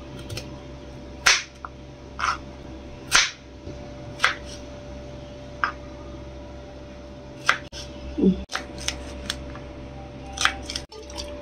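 Kitchen knife chopping vegetables (carrot, brinjal, green beans) on a plastic cutting board: sharp, irregular knocks of the blade hitting the board, about one a second at first and coming quicker in the second half. A faint steady hum runs underneath.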